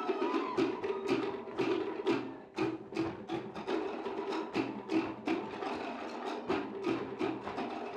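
Cook Islands drum ensemble playing a fast, driving drum-dance rhythm: sharp wooden knocks from slit log drums several times a second over a pulsing lower drum pattern.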